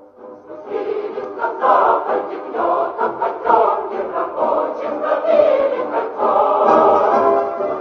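A choir singing a rousing Soviet song in Russian, coming in under a second in after a brief lull in the music.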